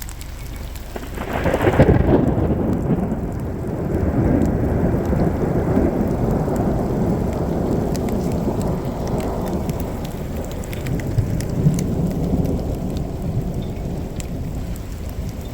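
Thunder from a lightning strike very close by: a sudden crack about a second in, then a long low rumble that slowly fades over more than ten seconds. Heavy rain falls throughout.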